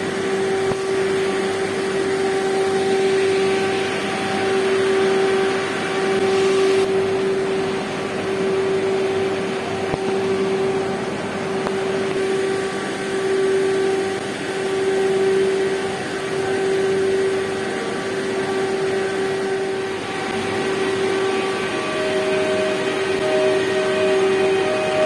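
PESA Elf electric multiple units in an underground station: a steady electric hum with a slowly pulsing tone and overtones. A rushing noise grows during the first seven seconds and then drops off. A second, higher tone joins about three seconds before the end as the orange train stands at the platform.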